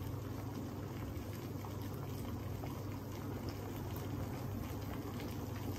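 Water at a rolling boil in a large stainless-steel brew kettle heated by a 6 kW electric element: a steady bubbling churn.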